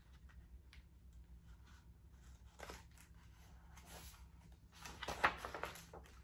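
Pages of a large picture book being handled and turned: soft paper rustles, with the loudest rustle and flap of the turning page about five seconds in.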